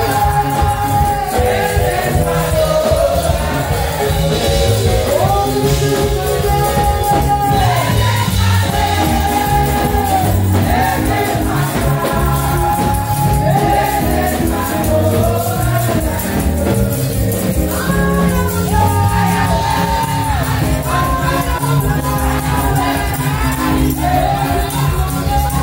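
Upbeat gospel praise music with a steady, driving beat and voices singing held lines that slide from note to note.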